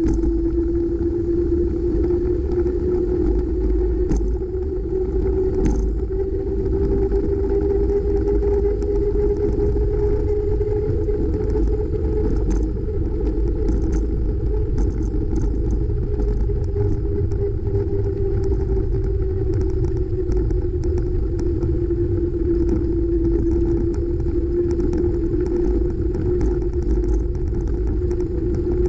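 Continuous wind and road rumble on a bike-mounted camera riding along a highway shoulder, with a steady hum whose pitch rises slightly toward the middle and settles back down.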